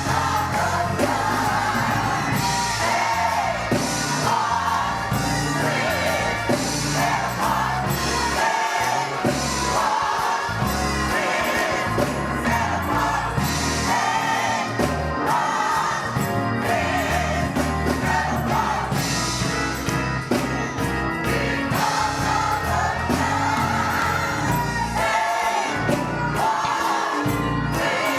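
Gospel choir singing with musical accompaniment.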